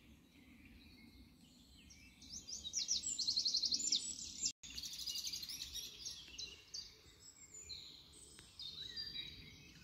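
Several songbirds singing in woodland, one with a fast, evenly repeated trill that is loudest from about two to four and a half seconds in, with other songs and calls around it. The sound cuts out for an instant about halfway through, then the birdsong carries on.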